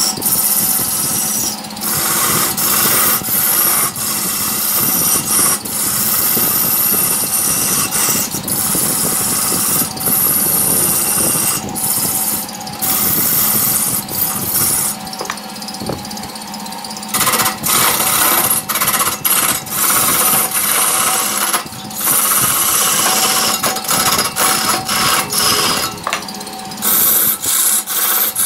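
Hand-held turning tool cutting into a large wood blank spinning on a wood lathe: a loud, steady scraping as the wood peels off in thick chips, broken by short gaps each time the tool lifts off, over a steady hum from the lathe.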